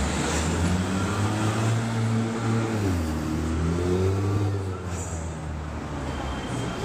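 Street traffic with a road vehicle's engine running close by: a low, steady engine note that drops in pitch about three seconds in and then climbs again.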